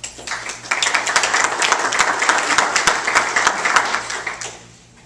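Audience applauding: many people clapping, building over the first second, holding steady, then dying away a little before the end.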